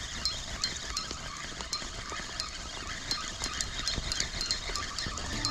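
Spinning reel being cranked to retrieve a lure: a soft mechanical whir with light, irregular ticks, over a low rumble.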